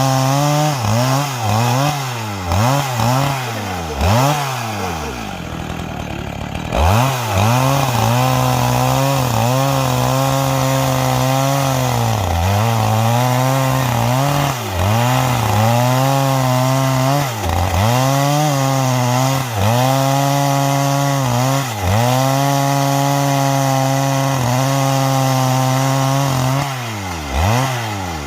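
Two-stroke chainsaw at high revs ripping a log along the grain with square-ground chain. The engine pitch dips under load and picks up again every couple of seconds. About four seconds in, the revs sag for a couple of seconds before it opens up again.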